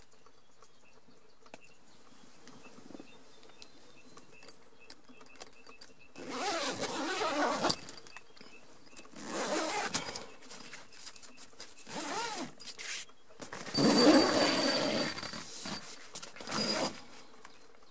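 Nylon dome tent's door zipper being unzipped in about five pulls, the first one long, with tent fabric rustling between them.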